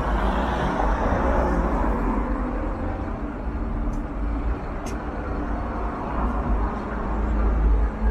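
Street traffic: cars passing on the road, a steady rumble of engines and tyres that swells near the end as a vehicle draws close.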